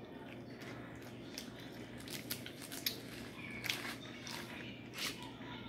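Close-up eating sounds: scattered wet mouth clicks and smacks from chewing and licking fingers, irregular and sharp, with a few louder ones about two to four seconds in and again near the end.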